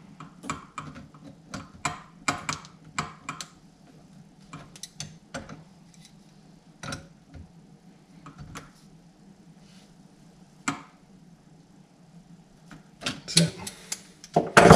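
Pliers clicking against the metal hose connector of a kitchen tap as the connection is nipped up by hand: irregular light clicks, with a louder cluster of clicks near the end.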